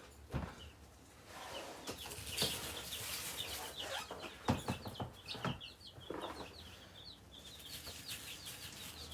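A brood of baby chicks and ducklings peeping: many rapid, high, overlapping cheeps, with a few sharp knocks among them.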